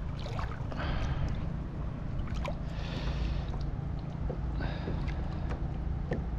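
Water splashing and sloshing against a kayak hull as a snook is held in the water alongside to revive it before release, with a few swishes and small drips. A steady low rumble runs underneath.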